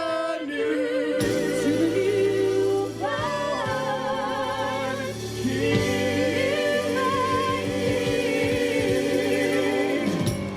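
A small vocal group singing the drawn-out closing phrase of a gospel-style Christmas song in harmony, with long held notes and vibrato over a steady low accompaniment, ending together on a final chord near the end.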